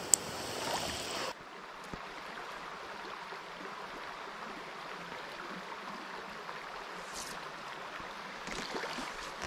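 Shallow wild-trout creek flowing: a steady wash of running water. There is a sharp click right at the start, and about a second in the sound drops abruptly to a quieter, even flow.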